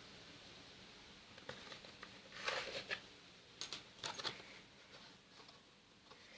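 Faint handling noises of motorcycle air-filter parts being pulled out by hand: short rustles and light clicks, loudest about two and a half and four seconds in. No engine is running.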